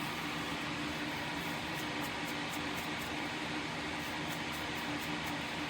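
Small fan drawing solder smoke away from the workbench, running with a steady whir and a faint low hum, with a few faint light ticks over it.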